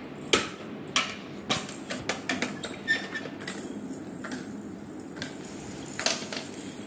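Hard plastic pieces of a stacking ball-tower toy being handled, knocking and clattering together in a string of sharp irregular clicks and knocks, the loudest about a third of a second in.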